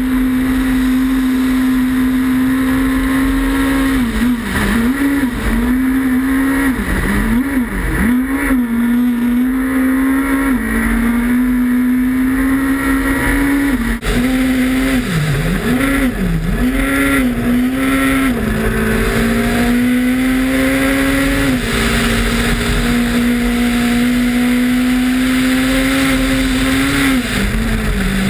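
Ford Fiesta S2000 rally car's naturally aspirated 2.0-litre four-cylinder engine at high revs under hard driving. The revs are held mostly steady, with several quick dips and recoveries in pitch in two clusters, and the engine note falls away near the end.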